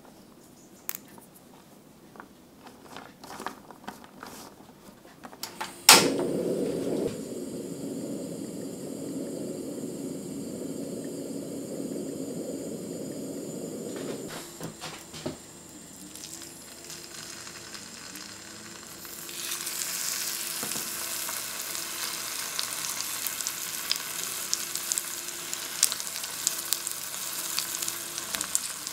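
Tofu slices frying in hot oil in a frying pan, a bright sizzle with crackling that starts about two-thirds of the way in and keeps going. Before it comes a sharp click followed by a steady low rushing, and a few faint small clicks of handling at the start.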